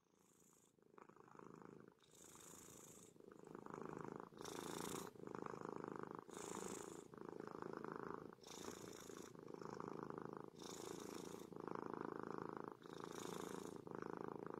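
A cat purring close up, the purr swelling and easing with each breath about once a second.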